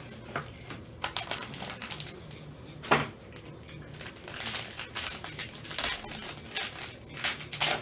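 Crinkling and rustling of a clear plastic card sleeve and holder as gloved hands work a trading card into it, with a sharp tap about three seconds in and quicker rustles near the end.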